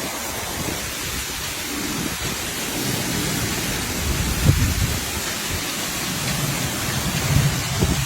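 Steady, loud rush of water in a flash flood, with low rumbles swelling about four and a half and seven and a half seconds in.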